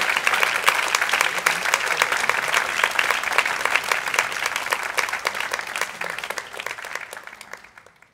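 Concert-hall audience applauding, a dense patter of many hands that dies away over the last few seconds and fades to silence near the end.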